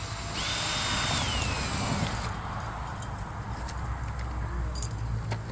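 Power drill running for about two seconds, its motor whine holding steady and then falling in pitch as it winds down, as it works screws into a gate lock. A few light clicks follow near the end, over a steady low hum.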